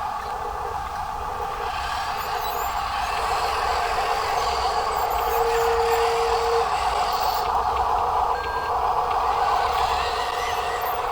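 Small electric motors of RC construction trucks whining steadily, with a run of short repeated beeps over the first three seconds and one longer beep of about a second and a half near the middle.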